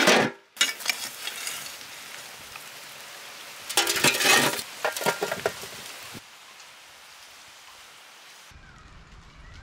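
Aluminium lid set down on a large biryani pot with a metal clang, then burning embers piled onto the lid to seal it for dum: a burst of clattering and scraping of coals on the metal about four seconds in, with a few smaller knocks after it, over steady crackling and hiss.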